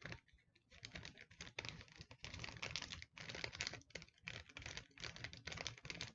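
Plastic candy packaging being handled and opened by hand: rapid, irregular crinkles and clicks.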